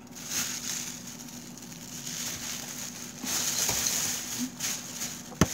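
Close rustling handling noise, rising and falling in irregular spells as things are moved about, with one sharp knock about five seconds in.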